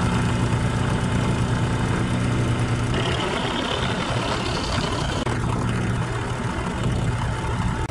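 Benchtop drill press running with a steady motor hum while a 13/64-inch twist bit bores holes in a block of wood. About three seconds in, a rough cutting noise joins the hum as the bit bites into the wood.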